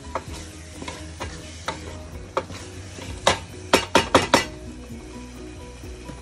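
Wooden spatula stirring minced mutton keema in a metal pot: repeated scrapes against the pot, with a quick run of louder strokes about three to four seconds in, over the sizzle of the mince frying.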